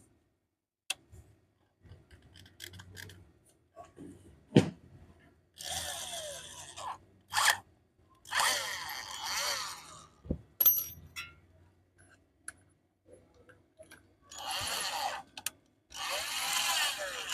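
Electric drill boring through a steel base plate to widen a bolt hole, run in four short bursts of a second or two with a grinding, scraping sound, and clicks and a sharp knock between them.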